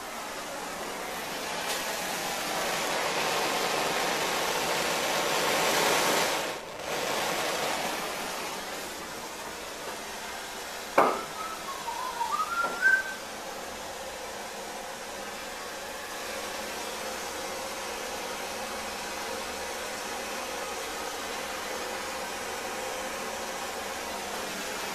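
Handheld propane torch burning with a steady hiss as it burns carbon off a leaf-blower spark arrestor screen. A sharp click comes about eleven seconds in, followed by a few short squeaks.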